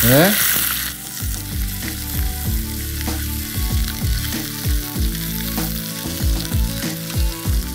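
Chicken thighs sizzling as they brown in a hot pan with a little butter, loudest for about the first second and then a softer, steady sizzle.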